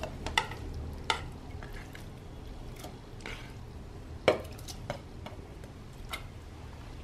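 Pieces of raw chicken dropped one at a time into a metal pot of boiling water, giving short splashes and plops with a few light knocks, over the steady low rumble of the boil.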